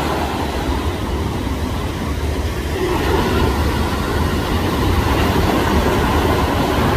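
Steady low rumble of ocean surf and wind, with no distinct animal calls standing out.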